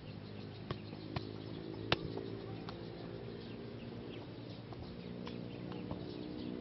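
A football being kept up with the feet: three sharp touches on the ball in the first two seconds, the last the loudest, with birds chirping over a steady low hum.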